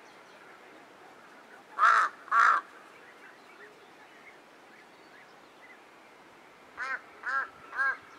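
Bird calls: two loud, harsh calls in quick succession about two seconds in, then a run of three shorter, evenly spaced calls near the end.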